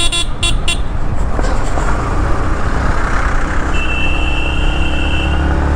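A vehicle horn toots in several short, quick blasts during the first second. After that, a Yamaha MT-15 motorcycle engine runs steadily under wind noise as the bike is ridden along.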